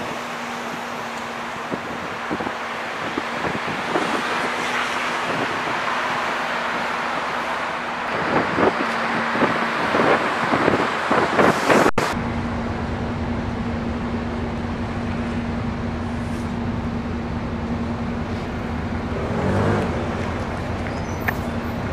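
Traffic and wind noise on the open top deck of a moving sightseeing bus, with the bus's steady engine hum underneath. A run of rumbling thumps hits the microphone about eight to twelve seconds in.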